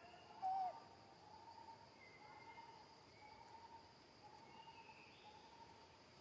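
Forest ambience: a steady, high insect drone, with one short hooting call about half a second in.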